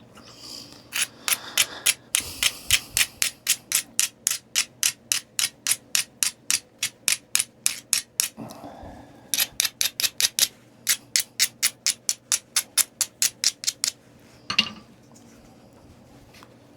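Rapid, evenly paced scraping strokes on the edge of a Tallahatta quartzite point being knapped, about four a second. This is typical of grinding the platform with an abrader before the next flake. The strokes come in two runs with a short pause near the middle, then a single louder knock near the end.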